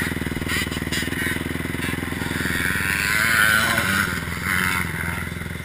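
Honda motocross bike's engine running steadily at low revs, with a mild rise in level about three seconds in.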